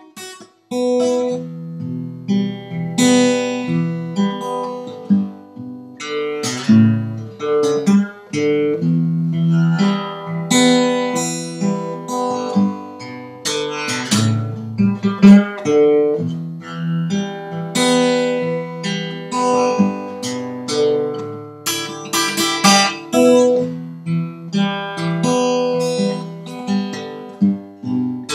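Acoustic guitar music: chords strummed and single notes picked.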